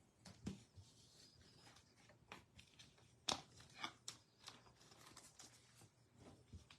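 Faint handling of trading cards and foil pack wrappers: scattered soft clicks and rustles, the sharpest a little past the three-second mark.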